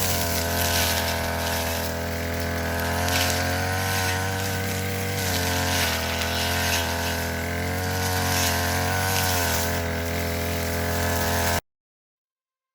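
Ogawa BG430DT two-stroke brush cutter engine running steadily, its pitch wavering slightly. The sound cuts off abruptly near the end.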